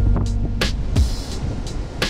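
Background music with a steady beat: drum hits over sustained low synth notes.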